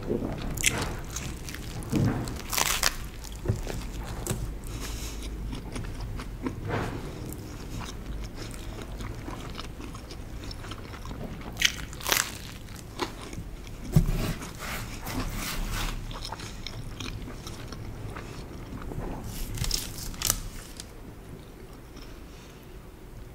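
Close-miked biting and chewing of a cheese-stuffed bread. A handful of sharp, crunchy bites at intervals stand out over continuous wet chewing.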